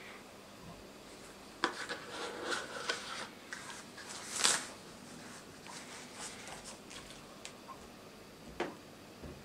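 Hands handling a cardboard phone box and its trays. There are light taps and knocks as pieces are lifted and set down, a sharp tap about one and a half seconds in, cardboard rubbing and sliding with the loudest scrape about four and a half seconds in, and another knock near the end.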